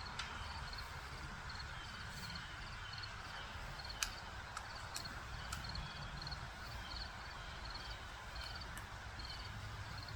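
Woodpecker pecking at an old metal dryer drum: scattered single sharp taps, the loudest about four seconds in. A high chirp repeats steadily about twice a second behind them.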